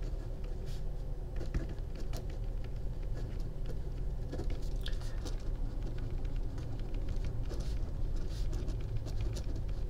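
Pen writing on paper: short, faint, scratchy strokes coming in irregular bunches, over a steady low hum.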